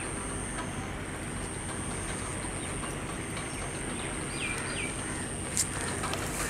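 Electric multiple unit local train standing at a platform: a steady hum and hiss with a thin, high, constant whine. Two short falling bird chirps come about four and a half seconds in, and a sharp click comes near the end.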